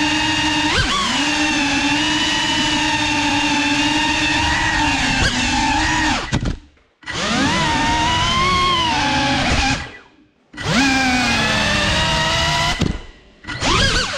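Cinelog 35 cinewhoop's brushless motors and ducted propellers whining, the pitch wavering and gliding up and down with throttle. Three times the sound drops out almost completely for under a second as the throttle is cut, then the whine comes back, rising in pitch.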